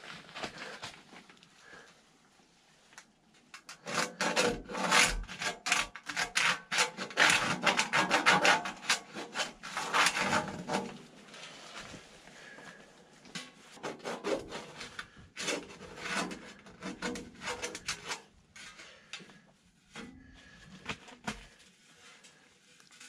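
Rapid rasping, rubbing strokes in quick runs, densest a few seconds in, then sparser scrapes and rustles toward the end.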